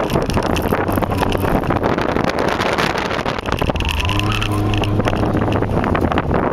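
1992 Toyota Camry LE with aftermarket muffler and cold-air intake, heard from inside the cabin while driven hard through an autocross course: the engine working under load over loud wind and tyre noise. A steadier pitched engine note stands out about four seconds in.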